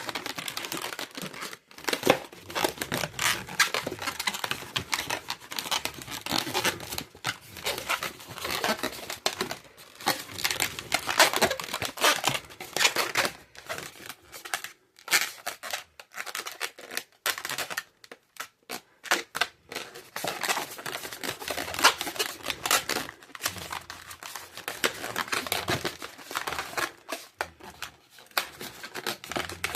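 Latex modelling balloons being handled and twisted: a dense, irregular run of rubbery rubbing and crinkling.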